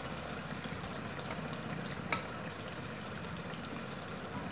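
Chicken tikka masala gravy sizzling steadily in its oil in a pan; the oil has separated from the masala, the sign that the curry is cooked through. One light knock about two seconds in.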